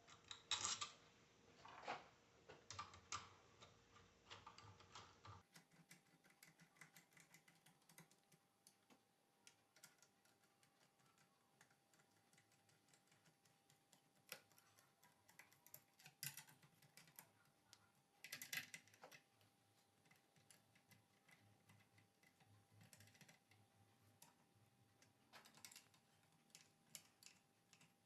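Faint, scattered clicks and light knocks of small metal parts and tools being handled while an alternator is put back together, with a few louder taps among them.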